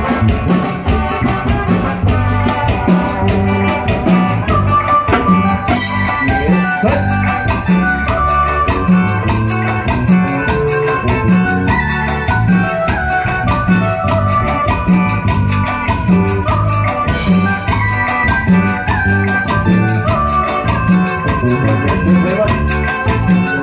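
Live band with electric guitar and drum kit playing Latin dance music, loud, with a steady driving beat and a repeating bass line.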